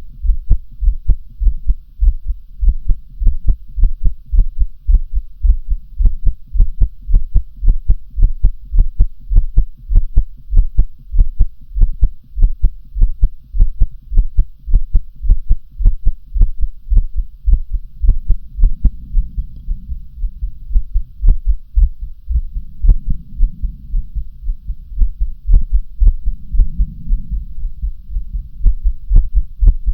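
Amplified human heartbeat, close-recorded, thumping in a steady rhythm of short, deep beats. From about two-thirds of the way through, a soft low whooshing swell rises and falls under the beats about every four seconds.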